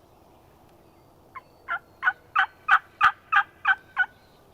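A series of nine turkey yelps, about three a second, building in loudness and easing off slightly at the end.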